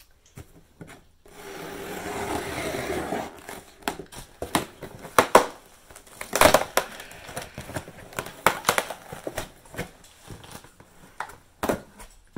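A cardboard box being opened and its packaging handled by hand. A steady tearing or scraping noise runs for about two seconds a little after the start, then a string of sharp crackles, clicks and knocks.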